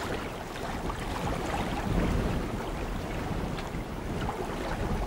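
Soft ambient wash of river water and wind, a steady low noise with a few faint small splashes.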